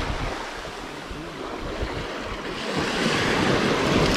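Small waves washing in over a pebbly beach in the shallows, the wash swelling louder from about two and a half seconds in, with some wind on the microphone.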